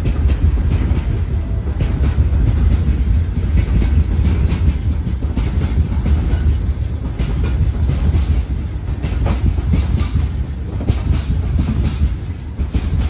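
Freight train of loaded open wagons rolling past below, a steady low rumble with wheels clacking over the rail joints.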